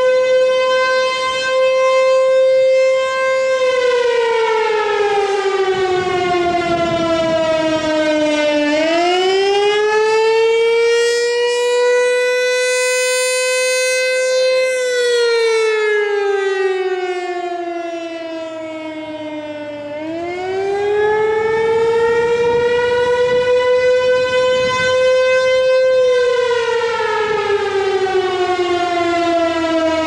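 American Signal T-135 rotating mechanical warning siren sounding the Attack signal. Its single tone holds, then slowly winds down and back up in repeated wails, each fall or rise taking about five seconds.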